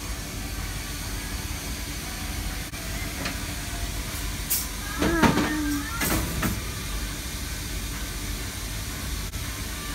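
A steady hiss over a low rumble of background machinery, with a brief louder sound of wavering pitch about five seconds in.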